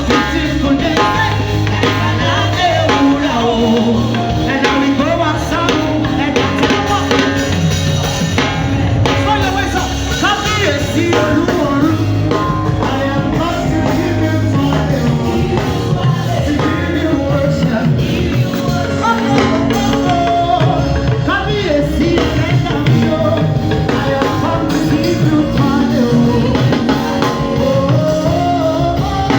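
Upbeat gospel praise music from a band with a drum kit, with singing over it.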